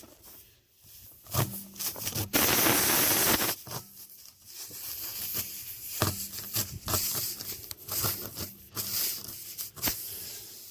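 Tire plug kit's spiral reamer scraping and rasping in a tire puncture as it is worked in and out to clean the hole, with scattered clicks and a loud stretch of air hissing out of the tire about two seconds in.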